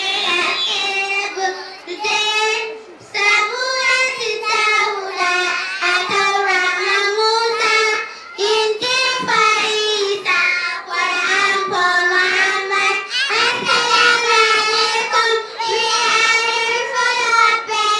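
A group of young girls singing in unison into a handheld microphone, a simple melody of held notes.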